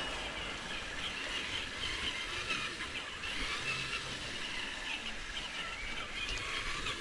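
Faint, wavering whir of a Traxxas TRX-4 RC crawler truck's electric motor and gears over steady outdoor background noise.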